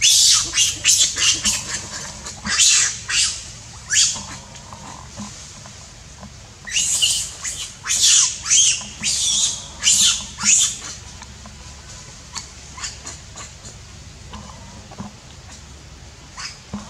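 Baby macaque screaming in distress under attack from an adult monkey: rapid, high-pitched cries in two bouts, the second starting about six and a half seconds in. After about eleven seconds only faint, scattered squeaks remain.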